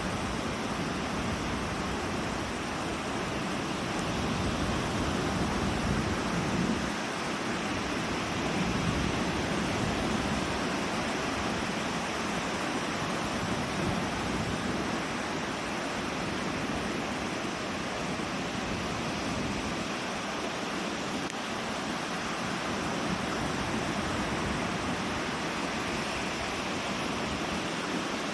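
Loud wind noise buffeting the microphone, the low rumble coming and going, over a steady rush of rain and lake surf.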